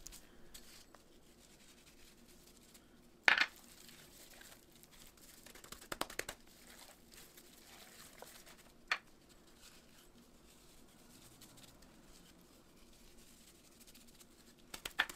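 Raw lamb leg being salted and rubbed by gloved hands in a clay bowl: faint rubbing and crinkling, one sharp knock about three seconds in, a few clicks later, and a quick run of light ticks near the end as coarse salt is sprinkled over the meat.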